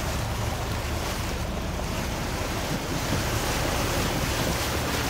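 Steady wind buffeting the microphone over the rush of sea water churning along the side of a moving boat's hull.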